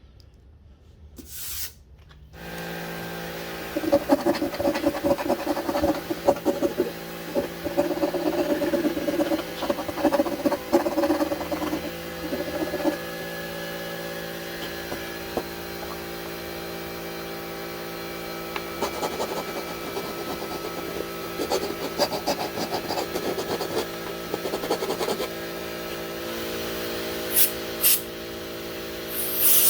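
A half-round file rasping back and forth on the burred edge of a freshly cut hole in an aluminium valve cover, in two long spells of quick strokes, over a steady machine hum that starts about two seconds in. Near the end come two short hisses and then a loud blast of compressed air.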